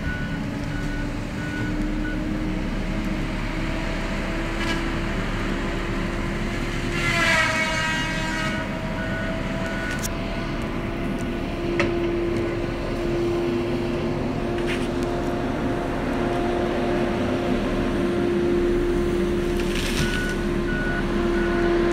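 Diesel engine of a grapple log skidder running steadily under load, its pitch rising a little midway, with a brief falling whine about seven seconds in. A reversing alarm beeps near the start and again near the end.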